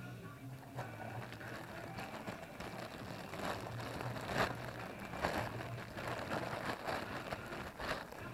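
Handling noises: a string of irregular clicks and knocks with rustling, busiest in the second half, over a steady low hum.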